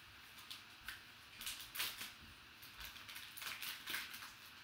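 Black plastic card-pack wrapper being crinkled and worked open by hand: a string of short crackles and rustles, loudest a little under two seconds in.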